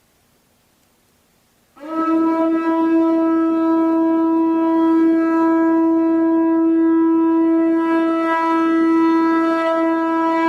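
Conch shell trumpet blown: one long steady note that starts suddenly about two seconds in and is held on.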